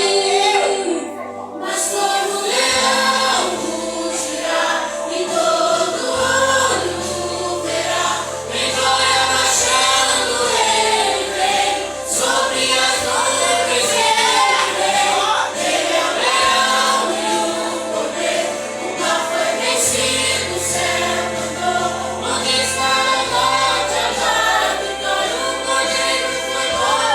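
A gospel worship group sings in choir with instrumental accompaniment, its low notes changing every few seconds.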